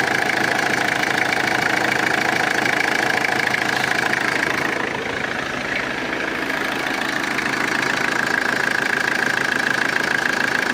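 Renault Express 1.9-litre diesel engine idling steadily with a diesel clatter; the mechanic judges the engine to be in poor condition from this sound.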